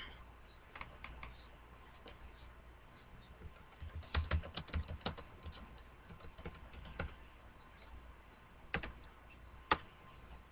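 Computer keyboard typing: a quick run of key clicks about four seconds in, then a few scattered single clicks.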